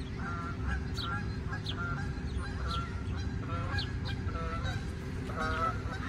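A flock of geese honking as they fly over, many overlapping calls repeating every half second or so. A small bird also gives short high chirps, about one every two-thirds of a second.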